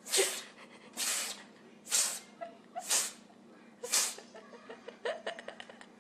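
A cat sneezing again and again, five sharp sneezes about a second apart, followed by a quick run of short clicks.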